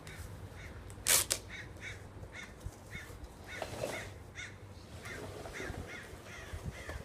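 A bird calling over and over in short, evenly spaced chirps, about three a second. A single sharp knock comes about a second in.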